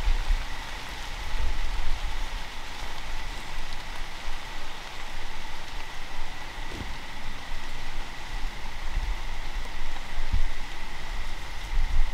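Outdoor ambience: an even hiss with a faint steady high tone over uneven low rumbling, and a soft thump near the end.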